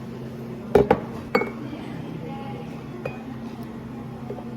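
Glassware and dishes clinking, three quick knocks about a second in and a lighter one near three seconds, over a steady low hum.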